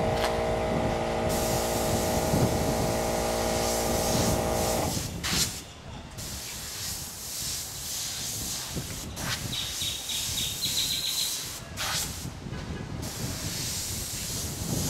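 Airbrush hissing as it sprays paint, breaking off briefly twice, while a small air compressor hums steadily until it shuts off about five seconds in.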